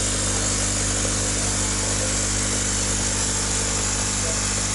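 Electric air pump running steadily to oxygenate a basin of eel fry, giving an even motor hum with a constant hiss above it.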